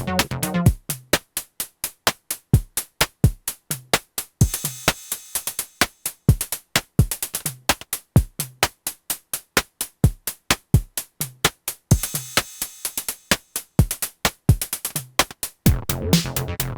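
Electronic techno groove at 128 bpm from a Moog DFAM, Behringer CAT and Elektron Syntakt. The pitched bass line drops out about a second in, leaving only the drum-machine percussion with two rising swells of noise. The bass line comes back in near the end.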